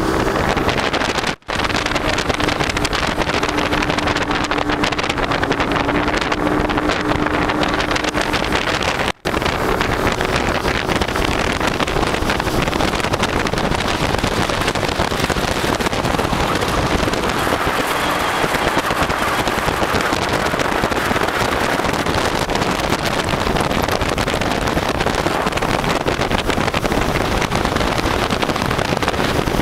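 Motorboat engine running steadily at cruising speed, with wind buffeting the microphone. A steady hum shows in the first few seconds, and the sound cuts out for an instant twice.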